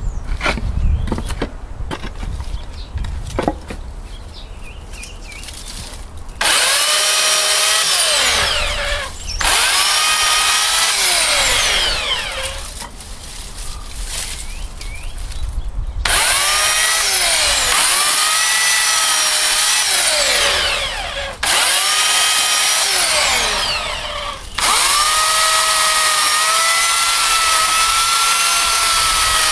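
Stramm 2000 W electric chainsaw running in four bursts of several seconds each, a high motor whine whose pitch sags and recovers again and again as the chain bites into dead branches. Before the saw starts, about six seconds hold only a few light knocks and rustles.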